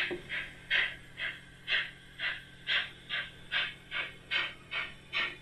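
Simulated steam exhaust chuffing from a TT-scale model steam locomotive's sound module, in an even beat of about two to three chuffs a second as the engine hauls its wagons.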